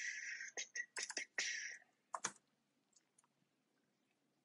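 A few computer keyboard keystrokes in the first two seconds, with a soft breathy hiss at the start and again about a second and a half in, then near silence.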